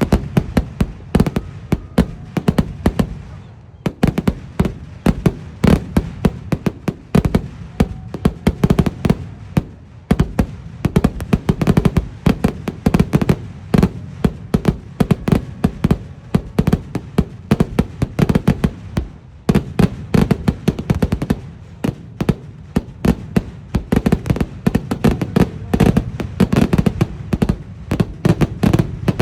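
Vedikkettu fireworks: a dense, continuous barrage of firecracker bangs, many each second. There are short lulls about three and a half seconds in and again about two-thirds of the way through.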